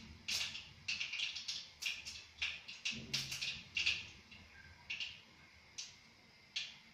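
Mustard seeds popping and spluttering in hot coconut oil for a tempering: quick irregular crackles, several a second at first, thinning to a few sparse pops near the end.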